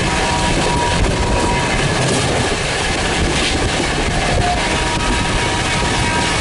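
Coaches of a Rajdhani express train rushing past at high speed, a loud steady roar of wheels and air with wheels clattering over the rail joints.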